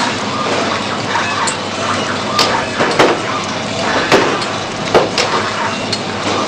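Powder packaging machine running: a steady mechanical noise over a low hum, with sharp clicks at irregular spacing about five times.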